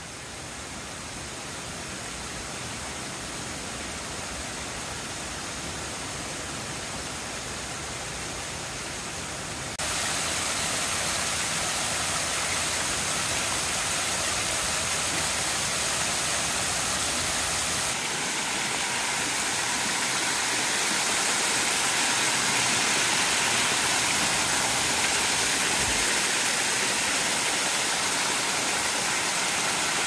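A low, wide waterfall, about 3 m high and 20 m across, made of many thin strands of water falling over a mossy rock face into a shallow pool, splashing steadily. It gets louder in two steps, about ten seconds in and again a little past halfway.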